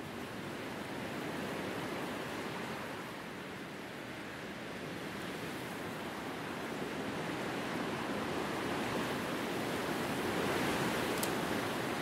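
Wind blowing through grass and trees: a steady rushing hiss that swells and eases in slow gusts, loudest about ten seconds in.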